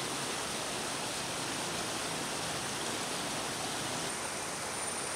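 Shallow river flowing, a steady rush of water. A faint thin high tone joins about four seconds in.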